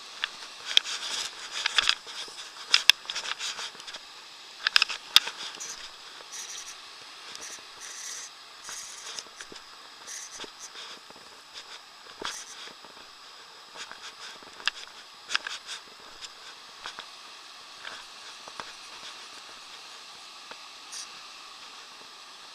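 Steady rush of the Arno's water pouring over a weir, with scattered sharp clicks and rustles, thickest in the first six seconds.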